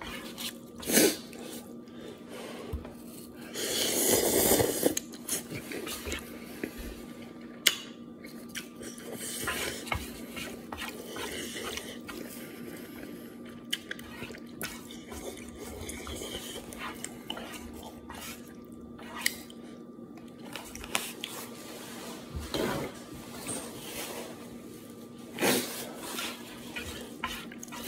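Wooden chopsticks clicking and scraping against a nonstick frying pan while instant noodles are eaten, with quiet chewing. There is a louder rush about four seconds in and a faint steady hum underneath.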